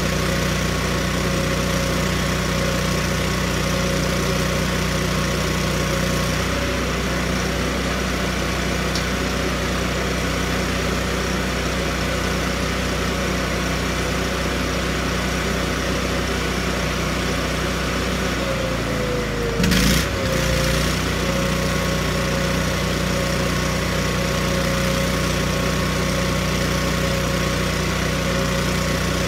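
Miller Bobcat 250 engine-driven welder's gasoline engine running steadily, with welding arc crackle over it. The arc stops about a quarter of the way in and is struck again with a sharp crack about two-thirds of the way through, the engine briefly dropping in pitch as it takes the welding load and then recovering.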